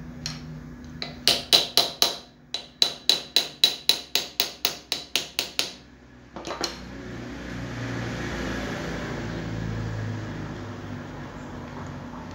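A run of about twenty quick, ringing metal-on-metal taps on steel wire clamped in a bench vise, four or five a second, with a short break about two seconds in, stopping after about six seconds. A soft hiss then swells and fades.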